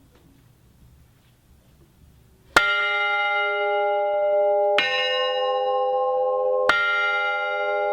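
Restored clock-tower bells: after a couple of seconds of faint room noise, three strokes about two seconds apart, each ringing on, the middle one on a different bell than the other two.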